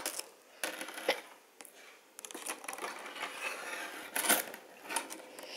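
Plastic rainbow slinky being handled on a tabletop, its coils clicking and rustling against each other in scattered light clacks, with a sharper clack about four seconds in.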